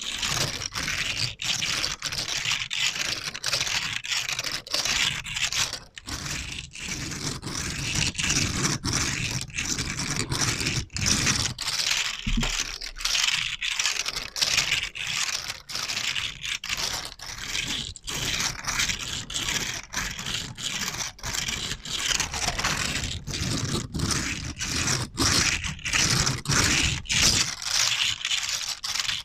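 Rapid, repeated scraping strokes on a surface: a dense scratchy ASMR trigger sound, with one stroke following another without pause.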